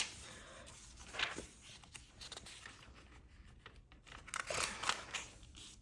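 Thin Bible pages being turned by hand: soft papery rustles and flips, a little louder about a second in and again past four seconds.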